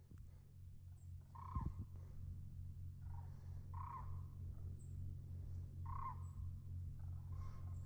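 Short, harsh crow-like animal calls repeating every second or two, with a few faint high bird chirps and a steady low hum underneath.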